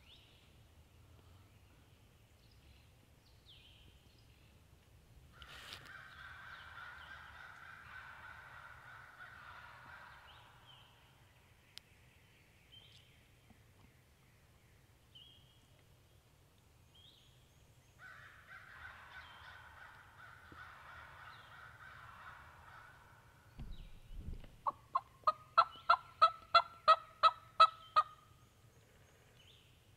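Wild turkeys calling: two long, faint stretches of distant sound, then a louder run of about a dozen evenly spaced turkey yelps, about four a second and growing louder, near the end, just after a low thump.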